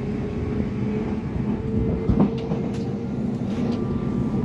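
Amsterdam metro train running on its rails, heard from inside the car: a steady rumble with a held motor whine, and one sharp clunk about two seconds in.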